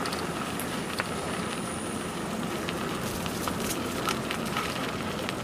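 Bicycle rolling along a rough trail: steady rolling noise with scattered clicks and rattles.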